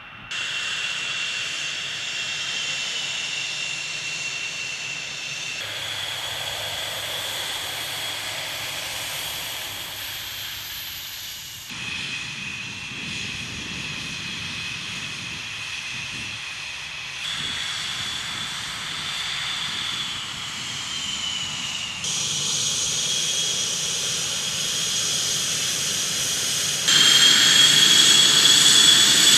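F/A-18 Hornet jet engines running on the ground at low power: a high turbine whine over a hissing rush, heard in several short clips joined by abrupt cuts. The whine slides down a little now and then, and the last clip, near the end, is the loudest.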